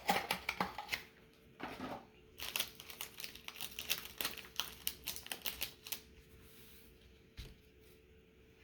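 Trading-card mini box and its packaging being opened by hand: quick runs of crackling and clicking for about six seconds, then a single soft knock near the end.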